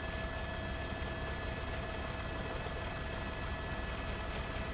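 Steady drone of a helicopter's engine and rotor, with a constant high whine over a low rumble.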